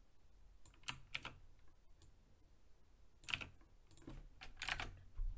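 Computer keyboard keys clicking in a few short, scattered clusters of keystrokes, as text is selected, copied and pasted in a code editor.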